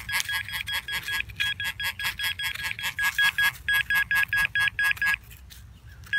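Makro pinpointer beeping fast and without let-up, about six beeps a second, falling silent for about a second near the end. The pinpointer is malfunctioning, though the owner wonders whether a strong signal is the cause.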